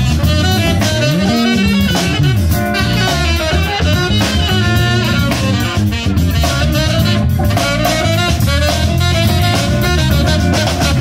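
Live jazz-funk band playing: saxophone lead over drum kit and electric bass, with a low note sliding up and back down about a second in.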